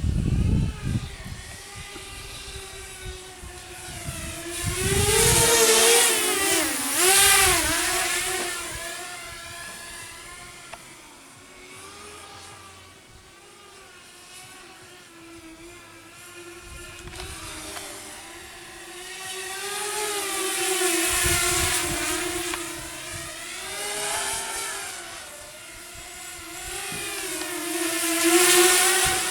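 Walkera F210 racing quadcopter's brushless motors and propellers whining, the pitch wavering up and down with throttle. It swells louder several times, about five seconds in, around twenty seconds in and near the end.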